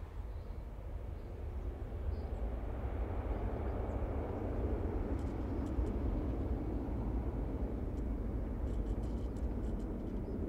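Jet engines of an American Airlines Airbus A319 at takeoff power, a steady low rush of engine noise that grows louder over the first few seconds.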